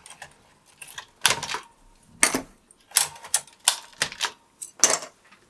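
Plastic keycaps being pulled off a BBC Micro keyboard: a run of irregular sharp clicks and clacks, about a dozen spread over the few seconds.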